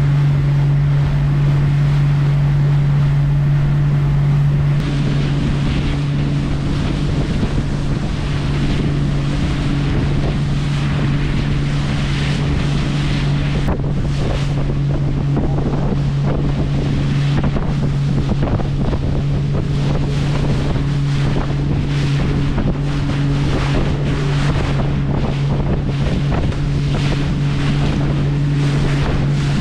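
A fishing boat's engine running at a steady drone, with a second, higher hum joining about five seconds in. Wind buffets the microphone throughout.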